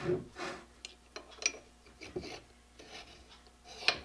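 A hardened steel jaw of a Skinner Junior three-jaw lathe chuck being worked into its slot in the chuck body: irregular metal-on-metal scraping and small clicks, with a sharper click near the end.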